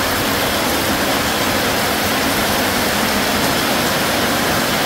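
Heavy rain falling in a steady, dense hiss, heard from beneath a corrugated metal porch roof.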